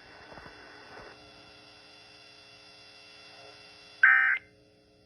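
Faint steady hum, then about four seconds in a short, loud burst of Emergency Alert System digital data tones: the first of the end-of-message bursts that close an EAS alert.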